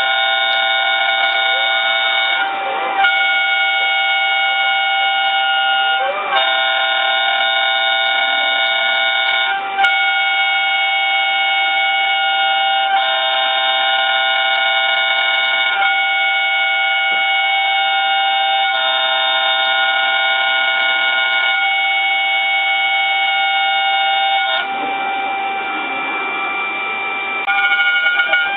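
Mini five-axis CNC router at work on an impeller: a steady high whine of several tones from its spindle and axis motors. The tones shift every few seconds, with short rising-and-falling sweeps in pitch in the first several seconds.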